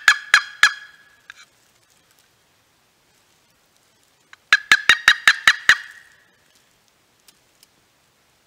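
Turkey yelping: loud, evenly spaced yelps, about five a second. The last few of one run come in the first second, and a second run of about seven yelps follows a few seconds later.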